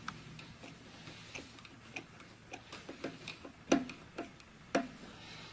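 Irregular light clicks and taps of a flat-blade screwdriver blade working around the rubber O-ring of a motorcycle turn-signal housing, with a few sharper clicks past the middle.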